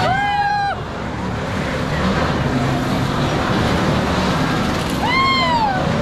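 Riders on a spinning tub ride squealing twice, once at the start and again about five seconds in, each squeal rising and then falling in pitch, over a steady rushing noise.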